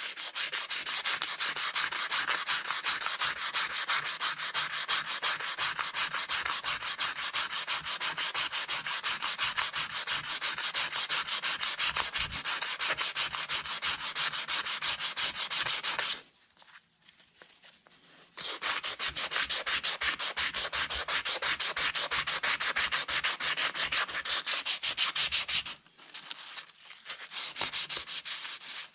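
Rapid back-and-forth hand sanding of a rusty metal part from a vintage hand-crank ice cream maker with a yellow sanding pad, scrubbing the rust off. The scraping stops briefly about halfway through and again near the end.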